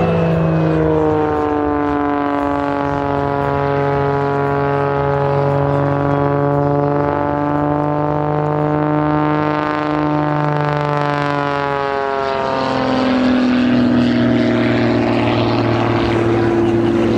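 Propeller-driven aerobatic airplane's engine running hard overhead, its pitch slowly shifting as it manoeuvres, then dropping sharply about twelve seconds in.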